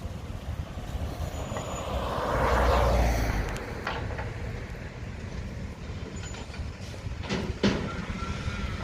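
Garbage truck running in the street, with a loud rush of noise swelling and fading about two to three seconds in, then a few sharp knocks near the end.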